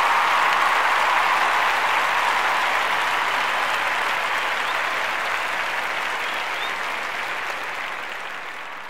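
Crowd applause, a dense even clapping that fades away steadily over several seconds.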